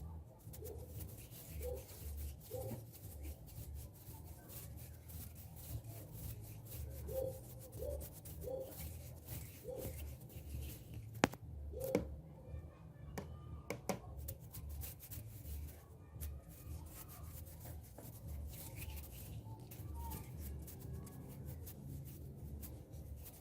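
Hands rubbing and brushing close to the microphone in a soft, continuous rustle, with a sharp click about eleven seconds in.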